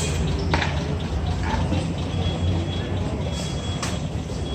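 Street ambience: a steady low rumble like passing traffic, with faint voices and a few sharp clicks.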